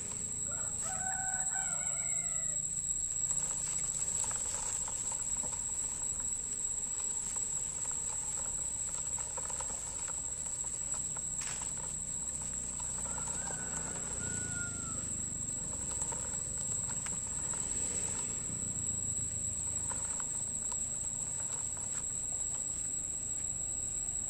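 A rooster crowing twice, about a second in and again around the middle, over a steady high insect drone. Underneath, the low rumble of a small plastic toy truck's wheels rolling over dirt and dry leaves.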